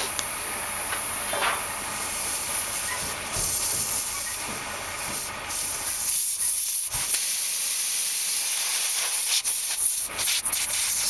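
Air hissing out of a punctured big-truck tire, a steady high-pitched hiss that dips briefly partway through; the tire still holds a lot of air.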